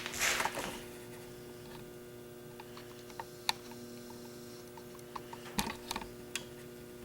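Steady electrical hum with a few scattered light clicks and taps, as of small tools and parts being handled during the chute cable repair.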